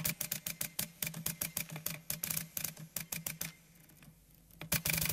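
Typewriter keys striking the paper in a quick run of sharp clicks, about seven a second, over a faint low hum. The typing pauses about three and a half seconds in, and a few more strokes come near the end.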